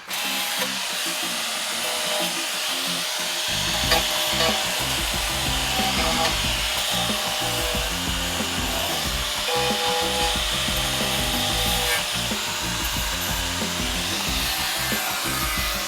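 Woodworking noise: a tool working wood with a steady scraping sound, over background music whose bass comes in about three and a half seconds in.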